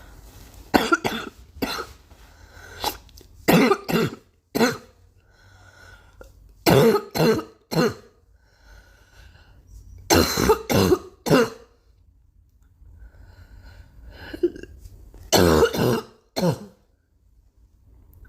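A girl coughing in about half a dozen fits of two to four coughs each, with quieter breaths drawn in between.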